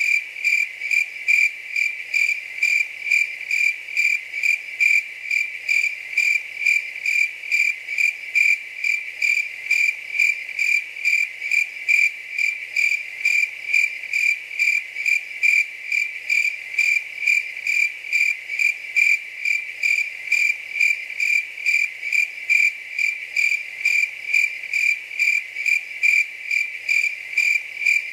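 A cricket chirping steadily: a high, shrill chirp repeated in an even rhythm, about two chirps a second.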